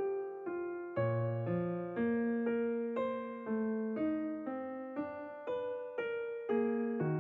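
Background music: an electric piano playing a steady run of notes, about two a second, each struck and fading.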